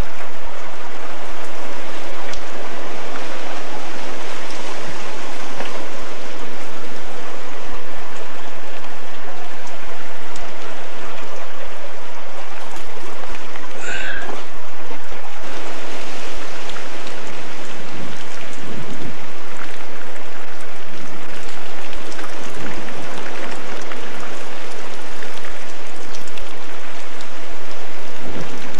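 Loud, steady rush of storm rain and floodwater during a nor'easter coastal flood. A brief high chirp comes about halfway through.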